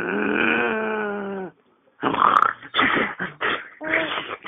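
A long, drawn-out playful vocal sound for about a second and a half, falling slightly in pitch, then choppy bursts of a baby's laughter.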